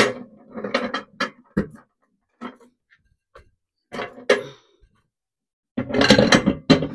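A glass microwave turntable plate and its support ring being handled and set into the microwave: scattered clicks and knocks of glass and plastic, then a denser clatter near the end.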